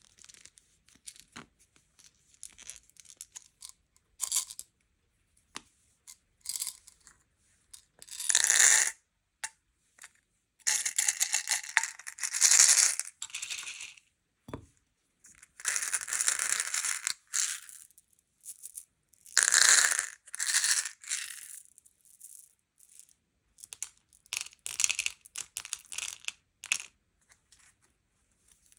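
Plastic candy and toy packaging being handled and torn open: small clicks and rattles, broken by several crackly bursts of crinkling and tearing, each a second or two long, and a single dull thump about midway.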